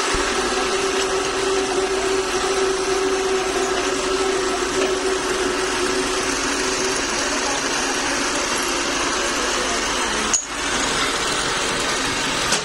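A pillar drill runs steadily while drilling a cross hole through a steel truck kingpin. A steady hum fades out about seven seconds in, and there is a single sharp click about ten seconds in.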